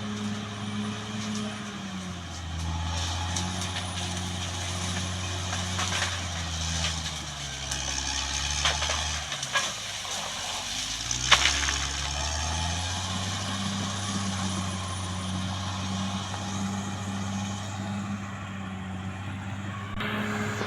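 Caterpillar D6R XL bulldozer's diesel engine running. Its pitch sags about two seconds in and sinks lower around the middle as the engine lugs under load, then climbs back up. A few sharp metallic clanks come through near the middle.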